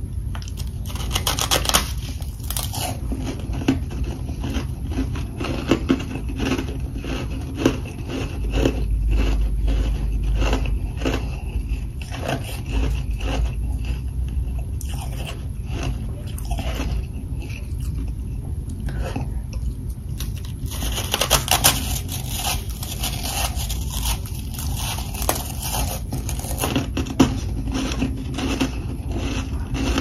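Close-miked biting and chewing of humidifier freezer frost: a fast run of crisp crunches as chunks of the powdery frost slab are bitten off and chewed, with heavier flurries of crunching about two seconds in and again about two-thirds of the way through.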